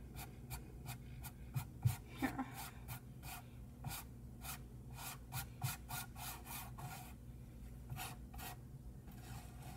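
Paintbrush dabbing and scrubbing on a canvas: a run of short scratchy strokes, about three a second, that stops near the end.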